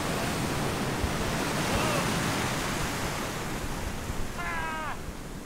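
Ocean surf breaking and washing up the beach, a steady rushing noise that swells toward the middle. Near the end a short high cry falls in pitch.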